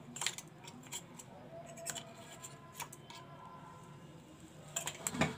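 Metal spoon clinking against a stainless steel bowl: a few separate sharp clinks, each with a short metallic ring, and a louder quick cluster of clinks near the end.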